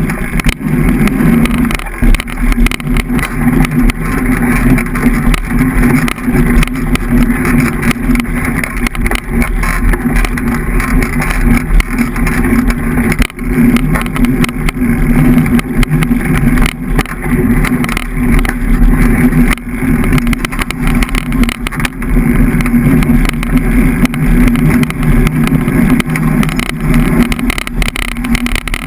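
Steady muffled rumble of a rigid fat-tyre mountain bike rolling down a dirt singletrack, picked up through the bike-mounted camera, with frequent small jolts and knocks from the bumps in the trail.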